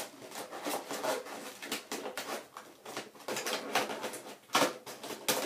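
Toy packaging being handled and opened: irregular crinkling, rustling and small clicks of plastic and cardboard.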